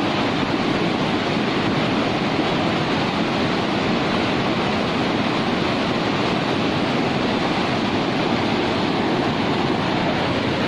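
Steady rush of fast-flowing floodwater in a swollen river.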